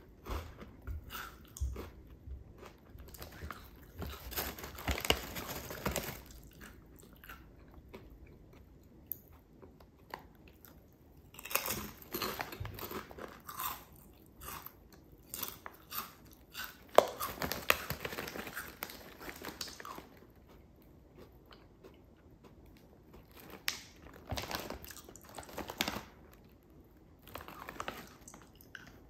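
Potato chips being bitten and chewed close to the microphone: crisp crunching that comes in bursts every few seconds, with quiet pauses between.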